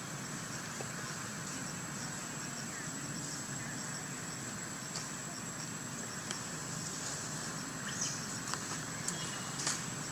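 Steady background hiss with a thin, continuous high-pitched whine, and a few short clicks and rustles over the last two seconds.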